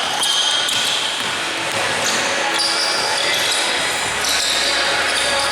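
Indoor basketball game: the ball bouncing on a hardwood court, with short high-pitched squeaks sounding over a steady din of the hall.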